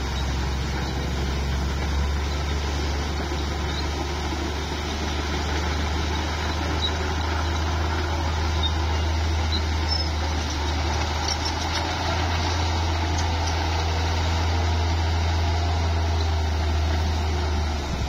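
Bulldozer's diesel engine running steadily, a low even drone.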